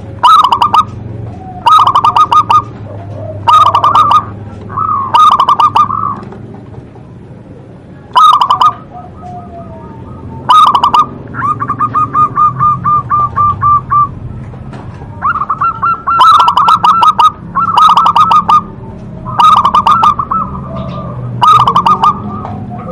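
Zebra dove (perkutut) cooing loudly in repeated phrases of rapid pulsing notes, one every second or two, with a longer even run of notes partway through.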